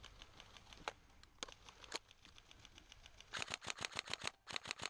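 Airsoft electric gun firing in a rapid string of about ten shots a second, starting about three seconds in with a brief break, over fainter regular clicking of distant fire.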